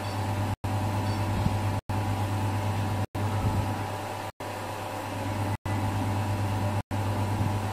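A steady low hum with a hiss over it, cut by brief silent gaps about every second and a quarter.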